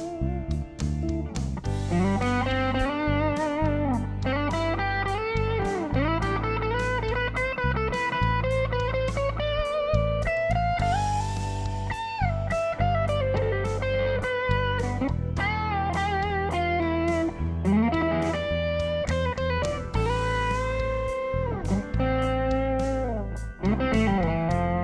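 Burman Sola electric guitar with a single Sunbear SB90 pickup, played through a Blackstar HT 20 valve amp and a 2x10 cabinet. It plays a bluesy lead line with string bends and vibrato.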